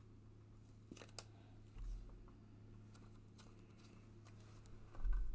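Faint handling sounds of paper and fabric being worked on a tabletop: a few light clicks about a second in and a couple of soft thumps, over a steady low hum.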